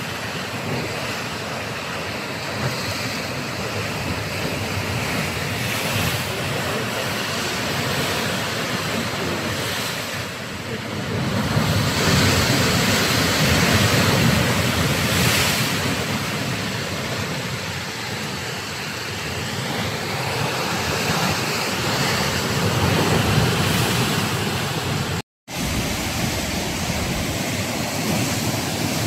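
Atlantic surf washing against sandstone sea cliffs: a steady rushing of waves that swells louder about halfway through, with wind buffeting the microphone. The sound breaks off for an instant near the end.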